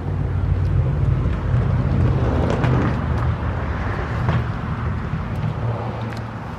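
A motor vehicle's engine hum and road noise, swelling over the first few seconds and then slowly fading, as of a vehicle passing close by.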